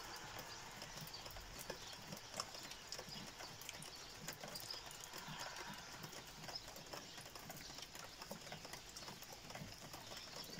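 Faint outdoor ambience with scattered light, irregular ticks and taps.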